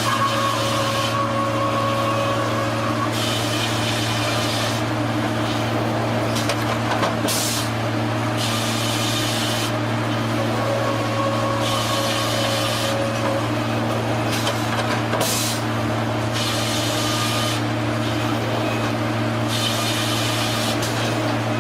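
Sawmill machinery running with a steady low hum, broken every few seconds by bursts of hiss lasting a second or two, and a faint whine at times.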